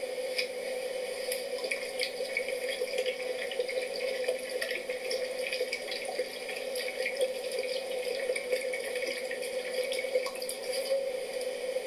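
Tap water running into a kitchen sink, with small irregular splashes and clicks throughout.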